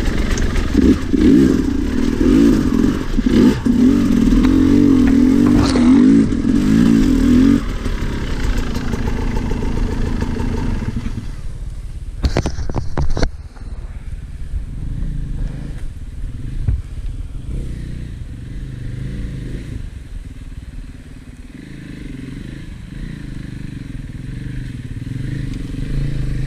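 Two-stroke enduro bike engine, a Sherco 300, working hard on a trail with its pitch rising and falling under the throttle. About twelve seconds in there are a few sharp clattering knocks, and after them the engine is quieter and steadier, ticking over.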